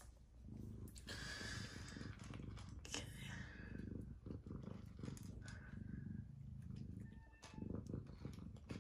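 Domestic tabby cat purring steadily while eating, with scattered crunching clicks of dry kibble over the low, pulsing purr.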